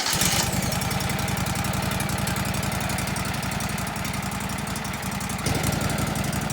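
Small gasoline engine of a Wood-Mizer LT15WIDE portable sawmill running steadily, with a fast, even firing beat; it picks up slightly about five and a half seconds in.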